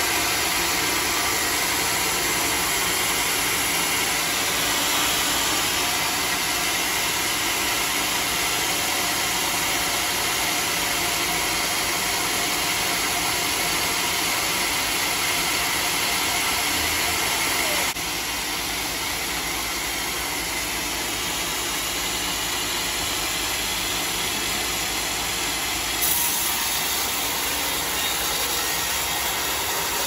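Band sawmill running steadily, its blade sawing lengthwise through a large mahogany log: a dense, even hiss and drone that drops slightly in level a little past halfway.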